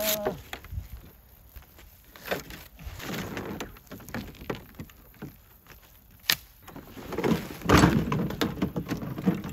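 The orange plastic hull sheet of a Tucktec folding kayak is unbuckled, unrolled and folded up by hand: rustling and flexing plastic with scattered knocks and clicks. There is a sharp click about six seconds in and louder rustling near the end.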